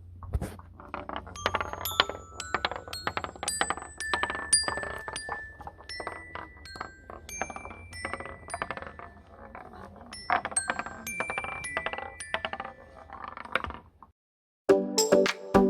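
Marbles rolling down a wooden marble run, clicking rapidly and striking chime bars that ring out short notes of different pitches. It stops abruptly near the end, and synthesizer music starts just after.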